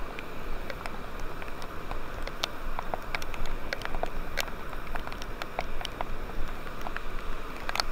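Rain falling: a steady hiss with scattered, irregular drop hits pattering.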